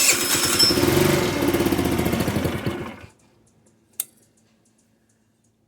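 GY6 single-cylinder four-stroke scooter engine catching on the starter, running for about three seconds, then fading out and stalling. It dies when the throttle is opened, the sign of a clogged pilot jet. A single click follows about a second after it stops.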